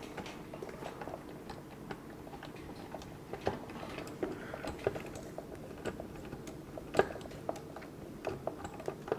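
Small irregular clicks and ticks of hand-tightening the screws that fasten a smart door lock's two halves through the door, with a few louder knocks about three and a half and seven seconds in.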